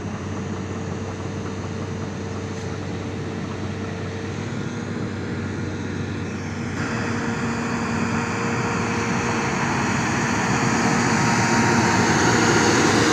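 Hidromek motor grader's diesel engine running steadily while its blade cuts through the soil, getting louder over the second half as the grader comes close.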